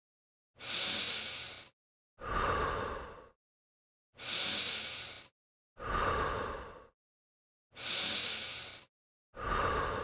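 A man breathing deliberately and audibly: six separate breaths, each about a second long and fading out, with silence between them, paced to the alternating elbow-to-knee crunch.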